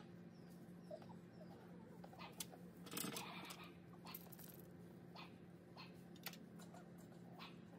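Faint rustling and crackling of dry hay being handled at a wire dog pen, with the loudest rustle about three seconds in and scattered small clicks. A few faint short chirps and a steady low hum run underneath.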